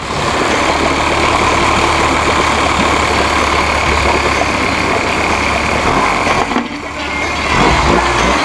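1983 Honda B100 10 hp four-stroke outboard motor running steadily with fresh spark plugs fitted. It dips briefly about six and a half seconds in, then runs a little louder near the end.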